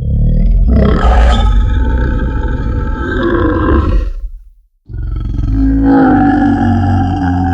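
Mudhorn creature roar sound effect: two long, deep roars, the first lasting about four seconds, a brief break, then the second beginning about five seconds in.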